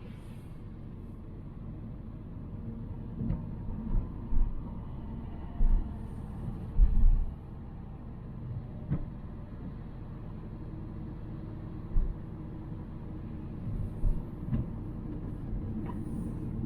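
Volvo C70 driving: steady low engine and road rumble, with several short low thumps, most of them in the first half.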